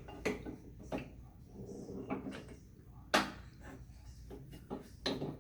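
Metal parts of a nipple chuck knocking and clanking as they are handled and fitted together: a few sharp knocks, the loudest about three seconds in, between quieter handling noise.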